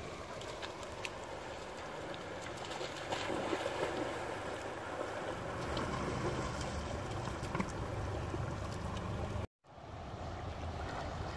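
Rain-swollen river water rushing and churning over rocks, a steady wash of water noise broken by a brief sudden cutout about nine and a half seconds in.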